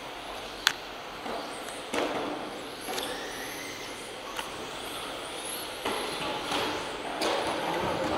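1:10 electric touring cars of the Modified class racing in a sports hall: high motor whines rising and falling as the cars pass, over a steady hall echo. Several sharp clicks, the loudest under a second in.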